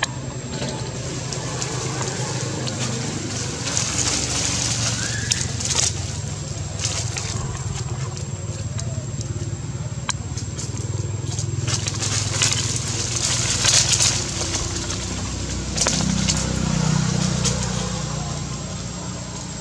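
Outdoor ambience: a low steady hum under a thin, steady high whine, with scattered short rustles and crackles that cluster about four seconds in and again around twelve to fourteen seconds in.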